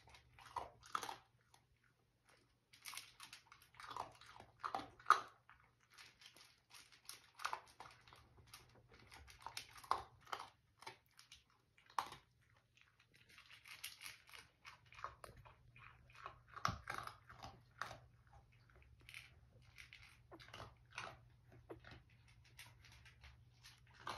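Two-week-old dachshund puppies sleeping in a pile, making soft irregular smacking and snuffling mouth noises, over a faint steady low hum.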